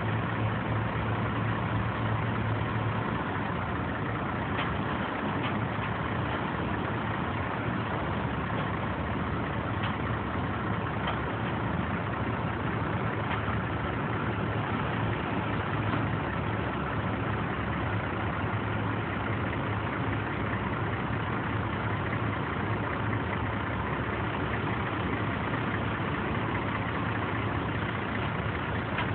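Caterpillar 3126 inline-six diesel engine of a GMC C8500 truck running steadily, with no change in engine speed.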